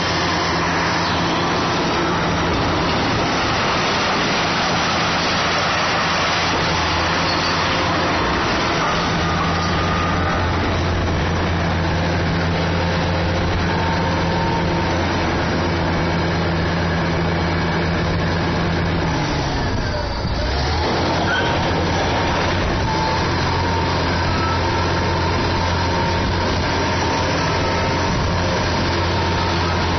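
Kobelco SK500 hydraulic excavator's diesel engine running steadily under load. About two-thirds of the way through, its pitch briefly drops and then comes back up.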